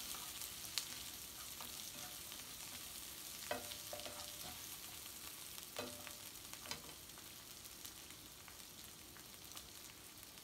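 Sliced onion and garlic sizzling steadily in oil in a frying pan, with a spatula stirring and knocking against the pan a few times.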